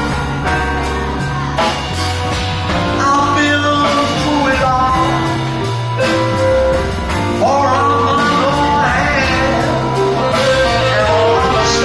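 Live jazz band playing an instrumental passage of a slow ballad: a lead melody line over piano and low bass notes, with the drummer's cymbal keeping a steady beat.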